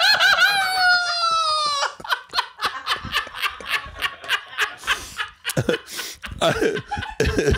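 A man's high-pitched, wavering laugh that slides down in pitch, breaking after about two seconds into rapid breathy laughter.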